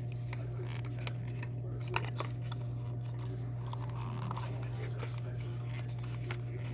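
Small plastic toy and its packaging being handled and pulled free: scattered light clicks, rustles and crinkles, the sharpest about two seconds in, over a steady low electrical hum.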